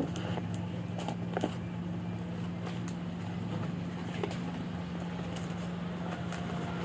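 Scattered light clicks and crackles of packaging being handled while a motorcycle rear shock is unwrapped, over a steady low hum.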